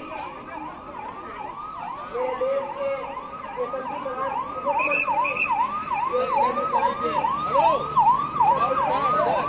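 Vehicle siren on a passing police convoy sounding a fast yelp, about two and a half falling wails a second, growing louder as the vehicles approach. A second, lower siren wails underneath at times.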